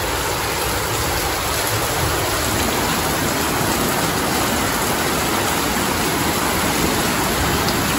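Torrential rain from a heavy thunderstorm, pouring down in a steady, loud, even rush.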